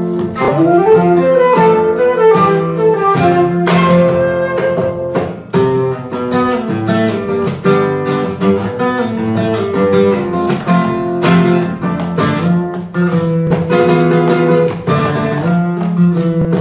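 Flamenco guitar playing quick runs of notes and sharp strummed chords within a live Persian-flamenco fusion ensemble.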